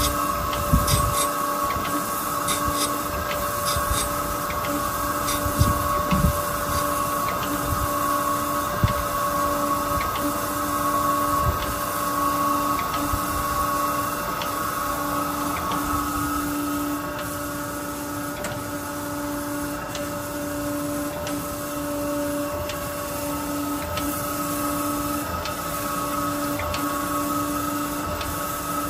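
Okamoto ACCUGAR 124N hydraulic surface grinder running: a steady machine whine, with a hum that pulses about once a second as the hydraulic table travels. The wheel grinds a metal block with sparks, crackling through roughly the first half and easing off after about halfway.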